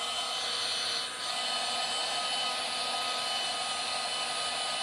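Ryobi cordless heat gun running steadily, its fan whining over a hiss of rushing air as it blows hot air through a heat-shrink attachment onto heat-shrink tubing on a wire splice.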